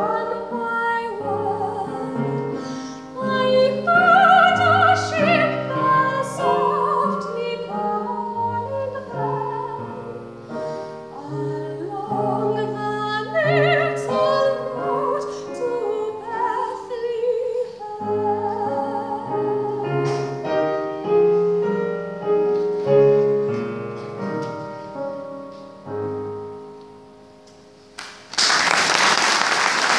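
A woman singing a solo ballad with piano accompaniment. The song closes on a held note that dies away, and applause breaks out about two seconds before the end.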